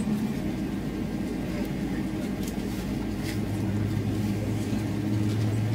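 Boeing 777-300ER cabin hum from the GE90-115B engines at taxi power, a steady low drone that grows louder near the end, with a few faint ticks.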